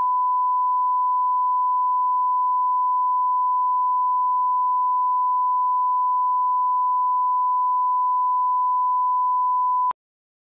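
1 kHz line-up test tone played with broadcast colour bars: a single steady tone that cuts off abruptly near the end. It is the reference tone used to set audio levels before a TV spot.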